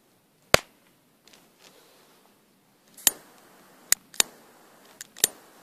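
A few sharp single clicks of a hand-held lighter being struck to light a firecracker fuse, the loudest about half a second in and the rest coming about a second apart from about three seconds in.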